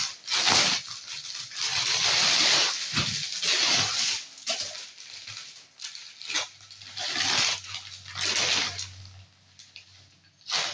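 Rustling of a sequinned net saree being handled and unfolded, coming in several irregular bursts with short quiet gaps between.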